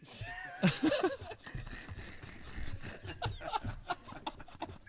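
Quiet laughter and snickering mixed with short voice fragments and scattered clicks.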